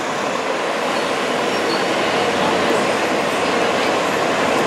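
Steady noise of a busy city street, traffic and crowds heard from an open-top bus, with no single event standing out. It grows slowly louder.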